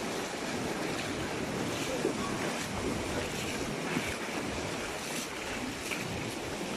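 Steady surf and wind on the microphone, with light splashes about once a second from booted feet wading through shallow seawater and a landed fish dragged through it.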